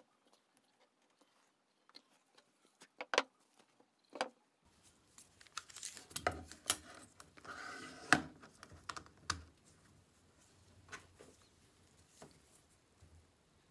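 Quiet workbench handling: scattered sharp clicks and taps of tools on wood, and a Festool steel tape measure being pulled out and laid along a wooden shelf, with a short rasping slide of the blade just past halfway.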